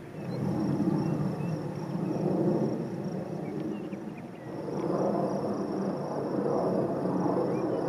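Wind gusting over open grassland and reeds, buffeting the microphone in two swells, one about half a second in and one near the middle. A thin, steady high trill and a few faint chirps sound above it.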